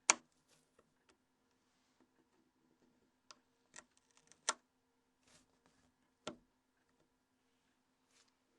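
A handful of small, sharp plastic clicks, spaced irregularly, as the bottom snap clips of a Nokia N82 phone's UI module are unlocked with an opening tool. A faint steady hum lies underneath.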